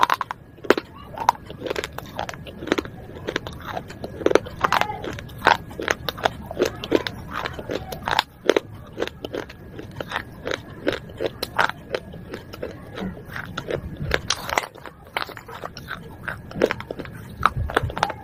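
Baked clay pot shards being bitten and chewed, a quick irregular run of sharp crunching cracks, a few every second.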